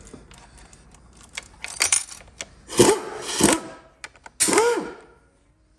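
Metal hand tool clicking and scraping against a GM 8L90 transmission case as a case seal is worked out, with a few light clicks followed by three harsh scrapes, each with a brief rising-and-falling squeal.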